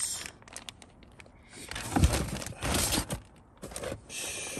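Packaging being handled: a clear plastic parts bag rustling and cardboard rubbing as parts are taken out of a shipping box, with one sharp knock about two seconds in.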